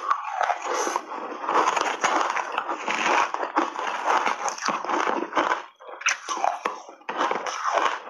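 Close-miked chewing of crushed ice mixed with milk powder: dense, crackly crunches one after another, with a short lull about six seconds in.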